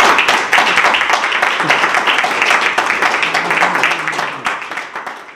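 Audience applauding: many hands clapping in a dense, steady patter that fades away near the end.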